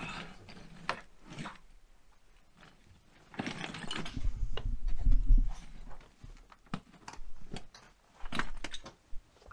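Scuffing and crunching over loose rubble and broken plaster in a narrow stone passage: scattered clicks and crunches, with a denser stretch of scraping about halfway through.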